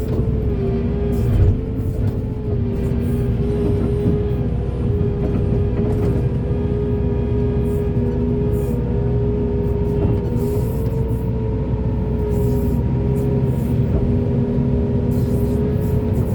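Heavy excavator's diesel engine running steadily at working revs, with a constant high whine over a deep rumble. There is a brief knock about a second and a half in.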